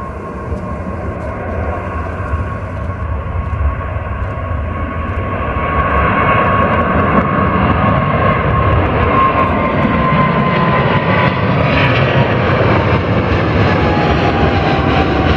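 Boeing 777's two jet engines at take-off thrust as the airliner lifts off and climbs overhead. The roar grows louder over the first six seconds and then stays loud, with a whine that slowly falls in pitch as the aircraft passes.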